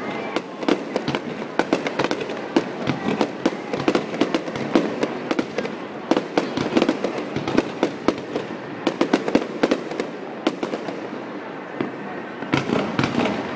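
Fireworks going off in quick succession, a dense run of sharp pops and crackles, thinning out somewhat in the latter half before picking up again near the end.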